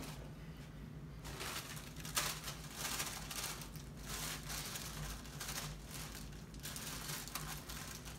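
Plastic sleeve of saltine crackers crinkling in the hands in repeated bursts as crackers are pulled out of it.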